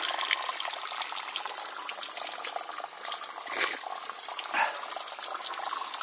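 Spring water pouring steadily from a plastic pipe outlet and splashing into a small stone-lined pool below.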